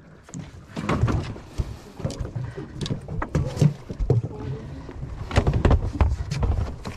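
Irregular knocks and thumps on a fiberglass boat's deck: a freshly landed Spanish mackerel thrashing, its body and tail slapping against the hull.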